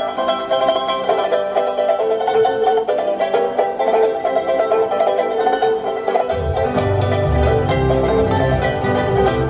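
Band music played on plucked string instruments, with a bass line coming in about six seconds in.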